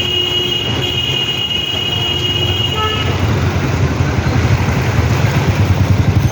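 Street traffic with a vehicle engine rumbling close by, and a long steady high-pitched horn or squeal held for about the first three seconds.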